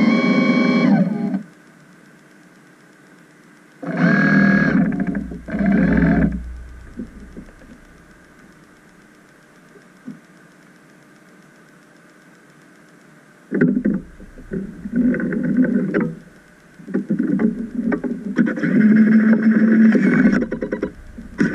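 Electric thrusters of an underwater ROV whining in short on-off bursts as the vehicle manoeuvres. The bursts are several seconds apart at first and come longer and closer together in the second half.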